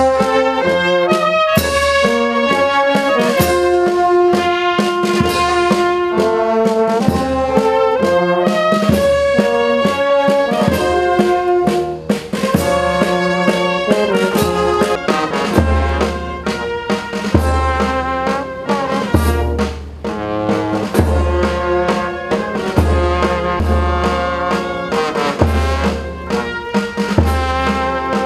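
Brass band playing, several brass instruments sounding together, with a low bass note repeating about every second and a half in the second half.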